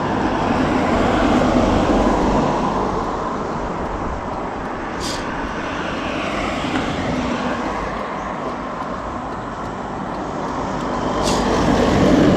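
Steady motor vehicle noise, a small motorbike's engine running with road noise, with two brief high hisses, one about five seconds in and one near the end.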